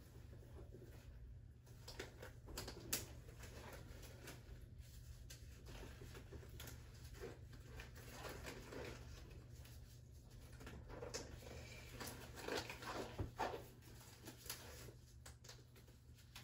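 Faint rustling and small snaps of nitrile exam gloves being worked onto the hands, as scattered soft clicks and crinkles over a low steady hum.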